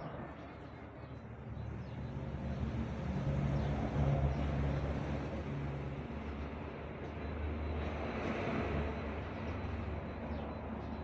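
A vehicle engine running with a steady low hum that swells and eases a couple of times.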